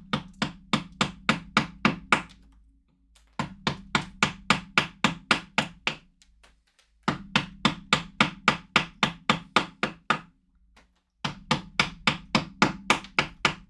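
A chisel cutting into a glued-up block of wood, driven with rapid blows of about five a second in four bursts of two to three seconds each.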